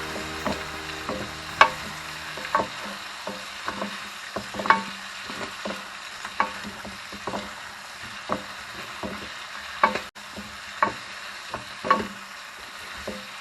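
A spatula stirring chicken feet in a pan of sizzling sautéed aromatics, clacking against the pan at irregular intervals over a steady frying hiss.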